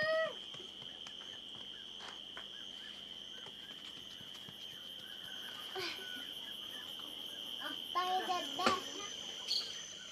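A steady, high-pitched drone of insects, with a couple of brief snatches of voices: one call at the very start and a few syllables about eight seconds in.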